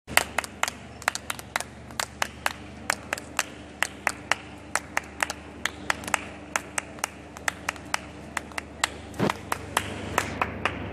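Hand clapping in a quick, uneven rhythm, about four sharp claps a second, over a steady low hum.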